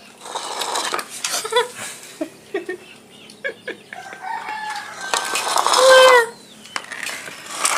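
A rooster crows once, a long held call about five seconds in that ends falling away, the loudest sound here. Before it, scattered light clinks and knocks of plates and dishes being handled.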